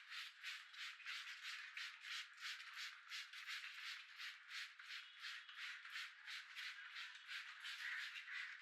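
Barber's hands working rhythmically over a customer's head and hair during a head massage: a steady run of short, noisy strokes, about four a second.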